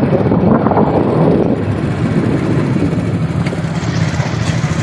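Steady running noise of a moving vehicle: a low engine and road rumble.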